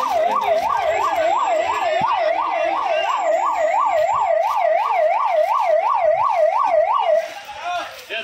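Electronic emergency siren in fast yelp mode, its pitch rising and falling about three times a second. It stops abruptly about seven seconds in.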